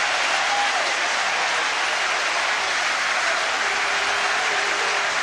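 Stadium crowd applauding a try, a steady, dense wash of clapping.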